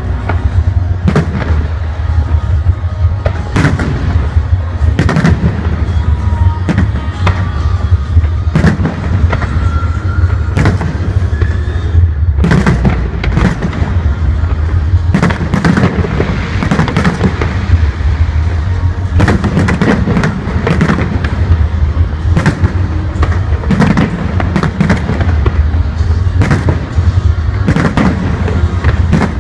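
Aerial firework shells bursting overhead, a string of sharp bangs at irregular intervals of about half a second to a second, over a steady low rumble.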